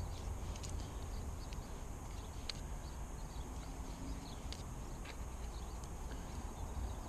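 Faint scattered clicks and taps of new NGK spark plugs and their cardboard sleeves being handled and set down on carpet, over a low steady background rumble.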